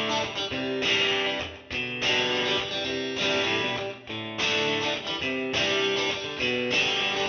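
Background music led by guitar: a phrase of short plucked notes repeating, with brief breaks between the groups of notes.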